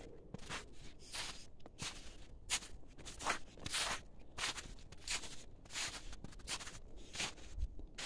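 Footsteps crunching through snow at a steady walking pace, a short crunch about every two-thirds of a second.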